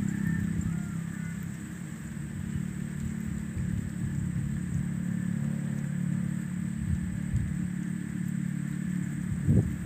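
A motor engine running with a steady low hum, with gusts of wind rumbling on the microphone at the start and again near the end.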